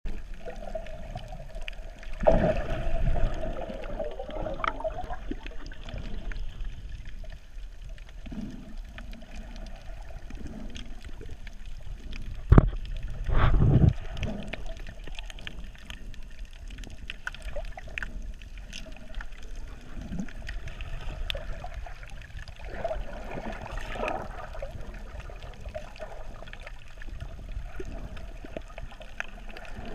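Sea water heard from below the surface: a steady muffled wash and gurgle of moving water. There are louder rushes of water and bubbles about two seconds in and again near the middle, the second opening with a sharp knock.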